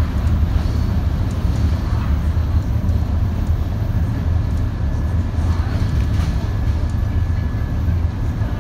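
A bus heard from inside while it drives along the open road: a steady low engine drone and road rumble, with light rattles from the bodywork.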